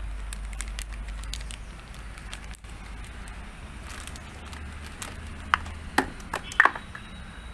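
Scattered light clicks over a steady low rumble, with a few sharper knocks in quick succession near the end.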